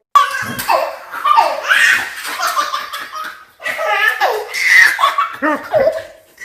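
Hearty human belly laughter in loud bouts, with a short break about three and a half seconds in.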